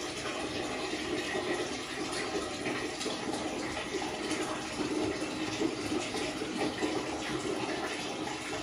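Water running and splashing in a small tiled bathroom while a wet husky's thick fur is rubbed by hand: a steady, fluttering wash of water noise.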